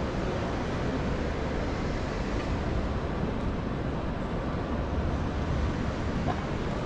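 City street ambience: a steady, even rumble of traffic with no single sound standing out.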